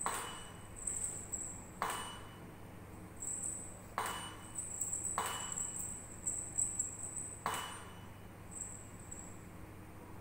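Five sharp clicks a second or two apart, each leaving a short ring, over a faint, very high jingling that comes and goes.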